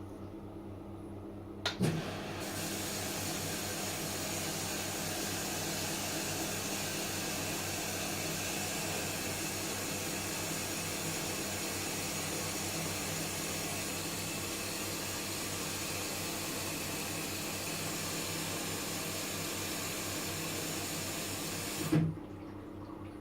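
Washing machine filling with water: a click as the inlet valve opens, a steady rush of water for about twenty seconds, then a click as it shuts off.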